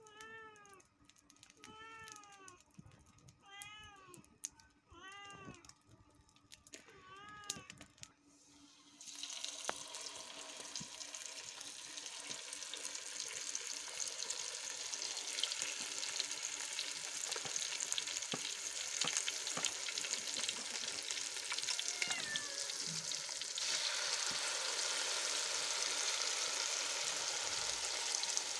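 A cat meows about five times, each a short arched call, over the first eight seconds. Then floured fish pieces go into hot cooking oil and sizzle steadily, louder from about two-thirds of the way through.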